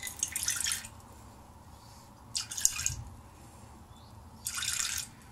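Liquor poured from a small bottle into a measuring cup in three short spurts, each under a second, with pauses between as the amount is measured out.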